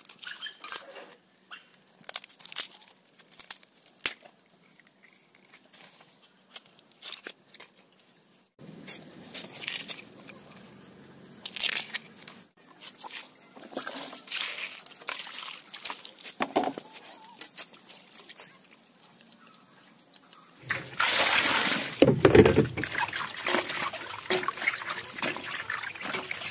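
Husk sheaths being torn off fresh bamboo shoots by hand, a scatter of crackles and tearing snaps. About twenty seconds in, water splashes and sloshes as the peeled shoots are washed in a steel bowl, the loudest part.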